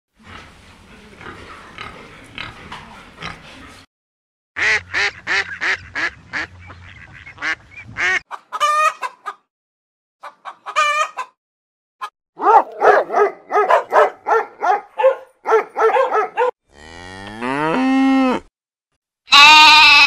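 Farm animal calls cut one after another: pig grunting, then chickens clucking in quick runs, one long drawn-out call, and a goat bleating near the end.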